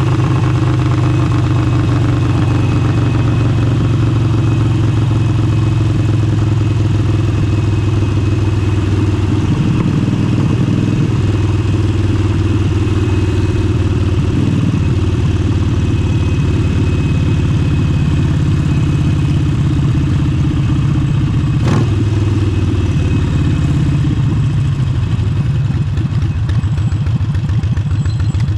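Harley-Davidson Forty-Eight's air-cooled V-twin running through an aftermarket Vance & Hines exhaust, the note steady with brief changes about ten and fourteen seconds in. A single sharp click comes a little past twenty seconds.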